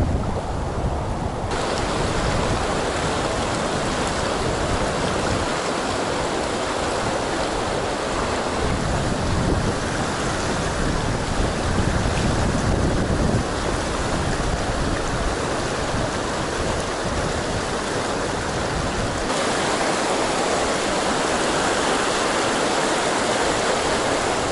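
Fast, shallow river rushing over rocks: a steady noise of running water. Wind rumbles on the microphone at times, and the water sound changes abruptly a couple of times.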